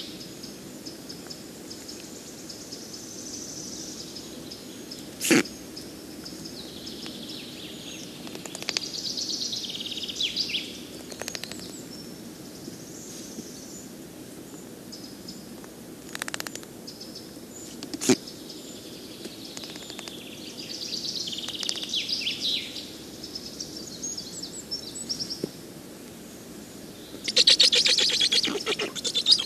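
Black stork nestlings giving high, scratchy calls in bouts, the loudest and most rapid run near the end. Two sharp clicks come in between.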